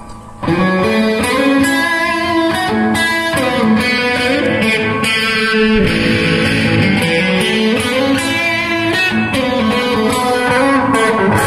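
Gibson Explorer electric guitar played through a Bugera 6262 Infinium tube amp head on a crunch setting: a riff of distorted chords and notes starting about half a second in.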